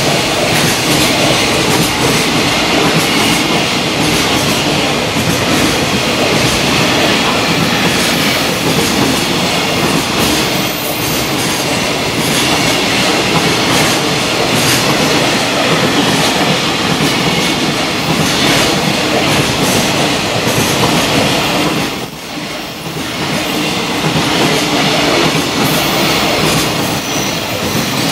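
Long JR Freight container train's flat wagons passing close by at speed, a loud, steady noise of wheels running over the rails. The sound dips briefly about three-quarters of the way through, then builds again.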